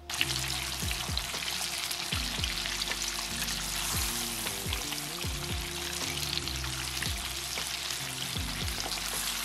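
Flour-dredged rabbit pieces deep-frying in hot oil: a steady, crackling sizzle. Soft background music plays underneath.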